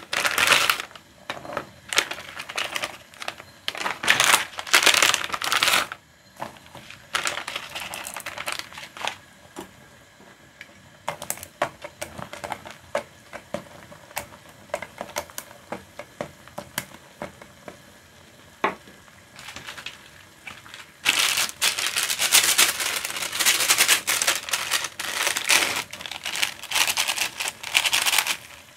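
Plastic instant-ramen packets crinkling and rustling in bursts as they are handled and torn open, with scattered light clicks and taps in between.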